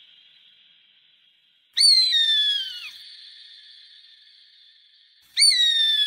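A bird of prey's shrill, whistled scream, heard twice. Each call starts sharply and slides down in pitch over about a second, then leaves a ringing tail.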